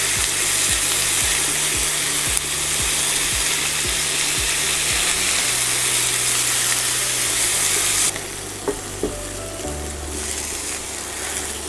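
Diced carrots, onion and celery sizzling as they fry in hot oil in a pan, moved about with a spatula. The sizzle drops suddenly to a quieter hiss about eight seconds in.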